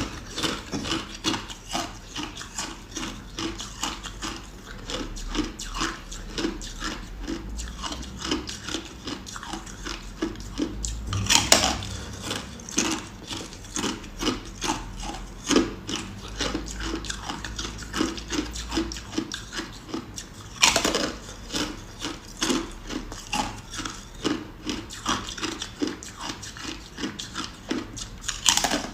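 Ice being chewed close to the microphone: a steady run of crunching, a couple of crunches a second, with a few much louder cracking bites about a third and two thirds of the way through and near the end.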